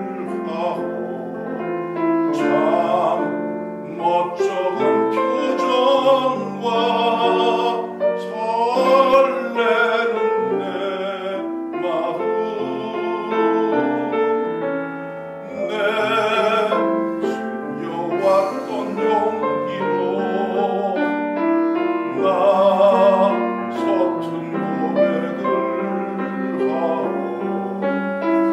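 A man sings a Korean art song in a classical, operatic style with wide vibrato, accompanied by a grand piano.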